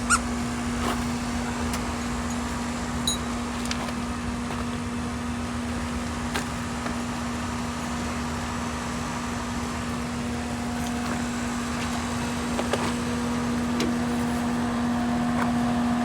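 The Trans Am's electric fuel pumps running with a steady, even hum, with a few light clicks over it. The pumps sound like they're dragging pretty hard, which is put down to the battery.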